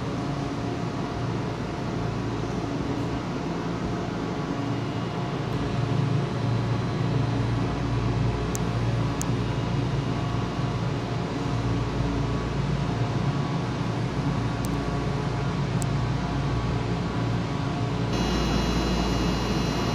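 Steady hum and hiss of a stationary Nagano Electric Railway 1000 series electric train's air conditioning and on-board machinery, with a few faint steady tones. Near the end it changes abruptly to a slightly louder hum with more high-pitched tones.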